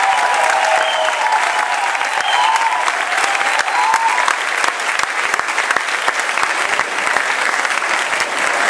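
Audience applauding steadily, with a few voices calling out over the clapping in the first few seconds.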